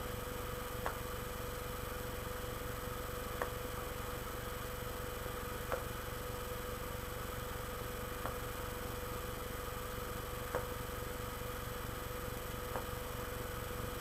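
Steady low electrical hum with a faint constant tone, and a soft click repeating evenly about every two seconds.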